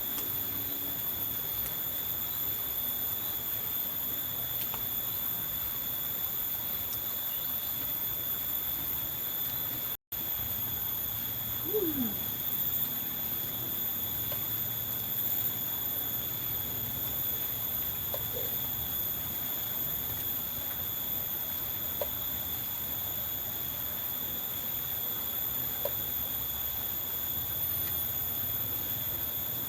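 Steady background noise with a constant high-pitched whine. The sound drops out completely for an instant about ten seconds in, and a short falling squeak comes a couple of seconds later.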